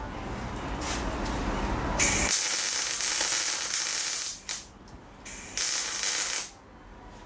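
Electric arc welding on a steel motorcycle frame: the arc strikes about two seconds in and runs for about two and a half seconds, gives one short blip, then runs again for about a second near the end.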